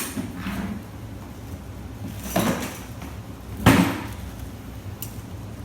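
Hand tools and metal transmission parts clunking and knocking as they are handled and set down: four separate knocks, the loudest about two thirds of the way through.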